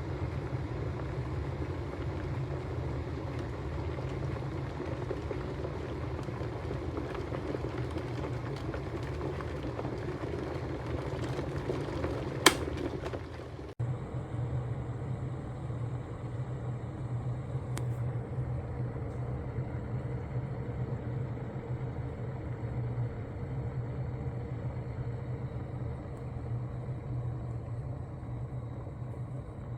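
Proctor Silex 1-litre electric kettle heating water toward the boil, a steady low rumble and hiss. A single sharp click about twelve seconds in.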